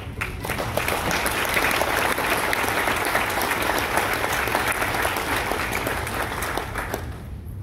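Audience applauding, a dense patter of many hands clapping that fades out about seven seconds in.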